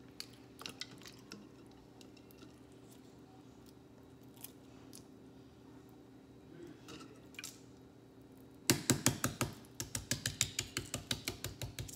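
Hard-boiled egg being cracked for peeling. There are faint scattered clicks of shell at first. About nine seconds in, a fast run of sharp taps starts, about five a second, as the egg is knocked against the counter to break up the shell.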